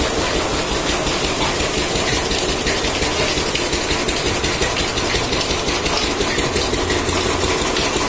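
Engine-driven chaff cutter (fodder chopper) running steadily, its belt-driven flywheel blades chopping green fodder.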